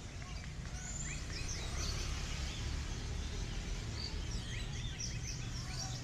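Several competition songbirds chirping and whistling at once: many short, overlapping calls and trills, some rising and some falling, over a steady low rumble.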